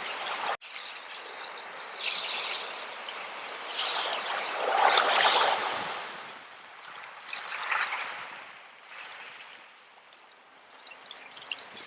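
Seawater washing in and out over shells on a shore: the rush of water swells several times, loudest about five seconds in, and ebbs toward the end with faint light clicks. The sound cuts out briefly under a second in.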